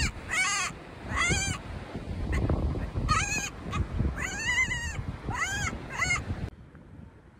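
Gulls calling: a run of short, arched squawks, about eight of them, over wind and surf noise. The sound cuts off suddenly about six and a half seconds in.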